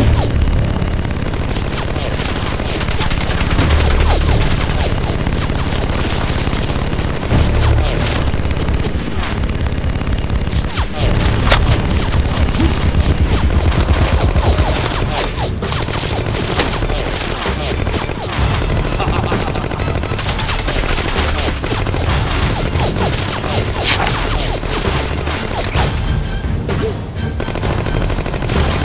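Rapid bursts of machine-gun-style gunfire, many shots a second, layered over background music with a heavy low beat.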